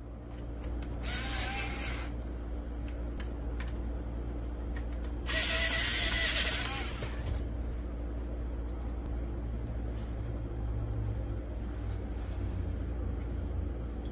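Cordless drill motor running steadily, with two louder, higher-pitched whining spells: a short one about a second in and a longer one about five seconds in.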